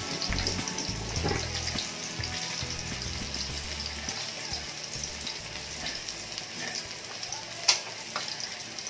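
Fish frying in hot oil in a wok: a steady crackling and spitting, with one sharp louder pop about three-quarters of the way in.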